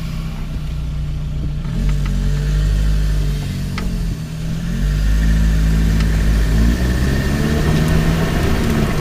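Lotus Elise on the move, heard from a camera mounted on its front left suspension: engine and road noise with an engine note that rises and falls, and several sharp clicks from the suspension. These are the clicks the owner is trying to diagnose.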